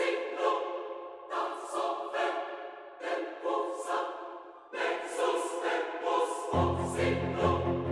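Background music in sustained melodic phrases; a low bass part comes in near the end.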